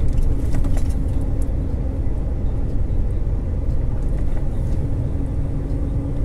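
Semi-trailer truck pulling an empty trailer, heard from inside its cab while cruising: a steady low engine and road rumble, with a faint steady hum that fades out about two seconds in and comes back near the end.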